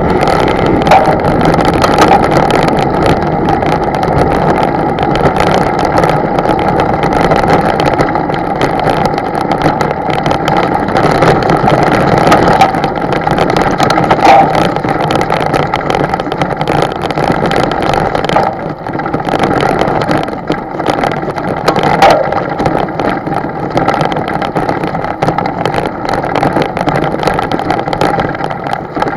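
A motorboat's engine running steadily, with water and wind noise mixed in; the level dips briefly a little past halfway.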